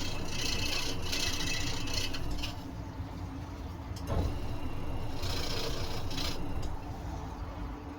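Scroll saw running, its reciprocating blade cutting through wood. The higher cutting hiss fades about two and a half seconds in and returns about five seconds in, with a sharp click about four seconds in.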